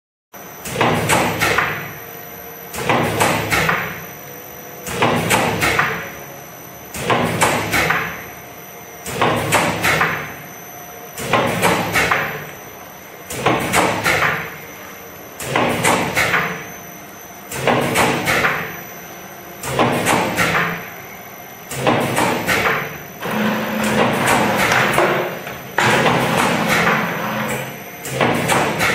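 Sandorè New Magic encrusting and extruding machine with its automatic panning and pressing unit running, forming maamoul cookies: a clattering cycle of knocks and clanks that repeats about every two seconds, over a faint steady high whine. Near the end the cycles run closer together.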